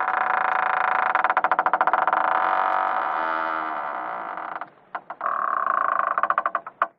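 A creaking door hinge: one long, stuttering creak, then a brief pause with a couple of clicks, then a second shorter creak that ends in a sharp click.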